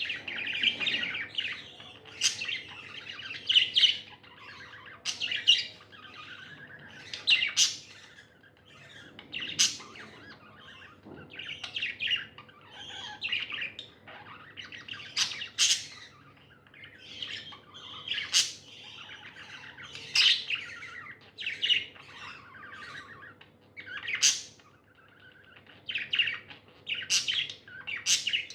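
Pet budgerigars chirping continuously, with loud, sharp calls every two seconds or so.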